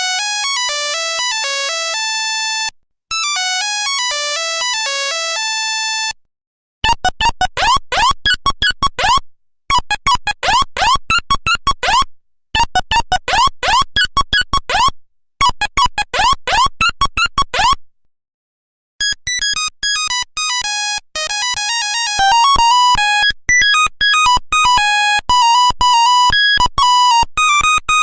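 Nokia 1100 monophonic ringtones, beeping melodies played one after another. A short tune ending on a held note plays twice, then a tune of quick rising chirps repeats four times with short gaps, then a third, busier tune starts about 19 seconds in.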